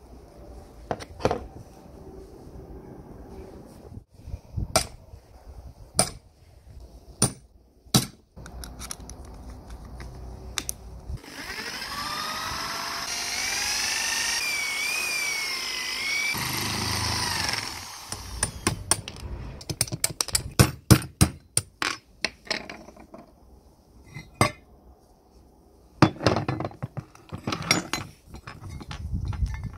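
A cordless drill runs for about six seconds in the middle, its pitch rising and wavering as the bit works into a cast iron juicer part. Before and after it come sharp metallic clicks and knocks as the parts are handled and taken apart.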